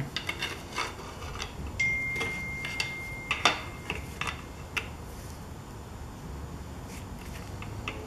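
Scattered light metal clicks and knocks of a pry bar levering a Gen VI big-block Chevy crankshaft fore and aft in its block to measure crankshaft end play, densest in the first five seconds and thinning out after. A thin steady high tone sounds for about a second and a half near the start.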